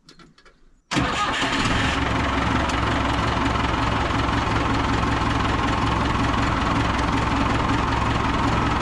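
Backhoe loader's engine running steadily, coming in abruptly about a second in.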